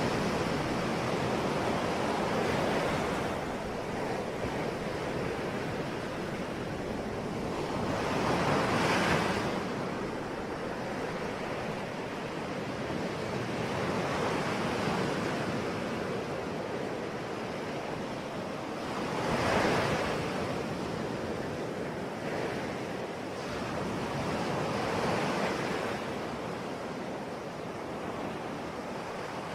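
Ocean waves breaking and washing on a shore, a steady rush of surf that swells every several seconds, with the two biggest breakers about a third of the way in and about two-thirds of the way in.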